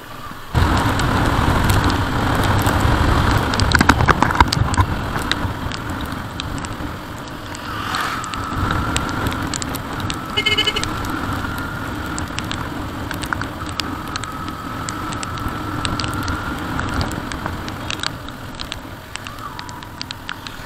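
Motorcycle on the move: engine running under a loud rush of wind and road noise that starts suddenly about half a second in. A faint tone slowly rises twice, and a short high beep comes about ten seconds in.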